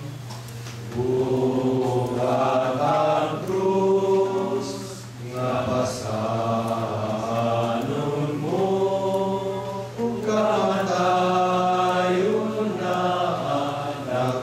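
Voices singing a slow chant-like choral piece, long held notes in phrases a few seconds each, over a steady low hum.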